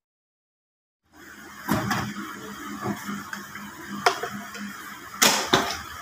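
A scoop knocking and scraping against a stainless steel trough as flour is dumped in: a few sharp knocks, the loudest clatter near the end, over a steady low hum.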